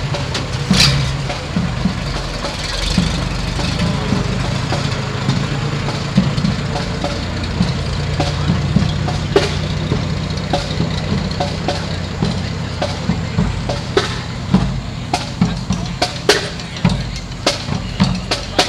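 Vintage fire engine's motor running with a low hum as it rolls slowly past, with a sharp clack about a second in. Over the last few seconds the drums of an approaching marching band come in as sharp, more and more regular strikes.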